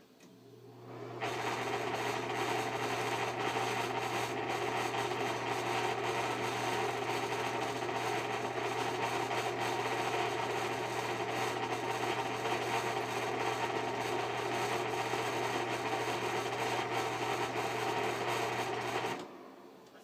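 Ceiling exhaust fan with bad bearings switched on and running: its motor comes up to speed over about a second, then runs with a steady hum under a rough, scratchy noise from the worn bearings, and stops suddenly about a second before the end.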